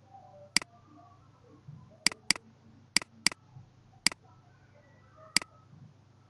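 Computer mouse button clicking: seven sharp single clicks, two of them quick double-clicks about a third of a second apart, over a faint low hum.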